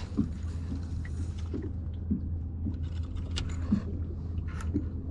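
Steady low rumble aboard a small boat on the water, with light knocks every half second or so and a few sharp ticks.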